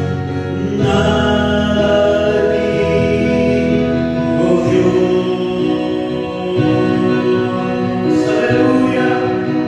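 A man singing a worship song in long held notes, accompanied by sustained chords on a Casio electronic keyboard.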